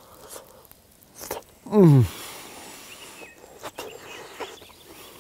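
A man chewing a hot mouthful of braised lamb shank, with light clicks and rustles of handling. About two seconds in he lets out one short, loud vocal 'mmm' that falls steeply in pitch.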